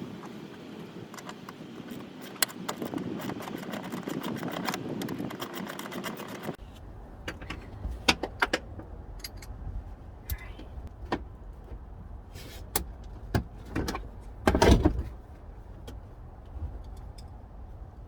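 Plastic interior trim being worked loose and pulled from a minivan by hand: scraping with rapid clicking and rattling at first. After an abrupt change, there are scattered knocks and one heavy thump about fifteen seconds in.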